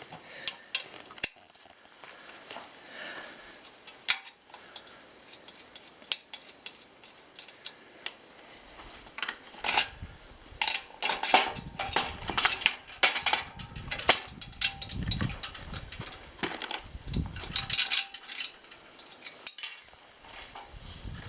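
Metal parts of a portable firewood-sawing stand clinking and knocking as it is handled, with irregular clatters that come thickest in the middle stretch.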